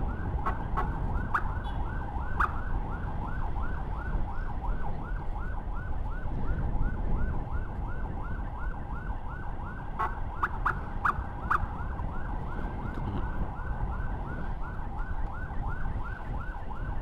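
Electronic siren yelping in a fast repeating sweep, about three times a second, over the rumble of the scooter and wind while riding. A few sharp clicks sound about ten seconds in.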